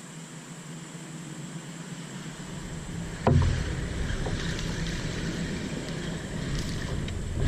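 A sharp knock on a kayak about three seconds in, followed by continuous rumbling water and hull noise with scattered small clicks.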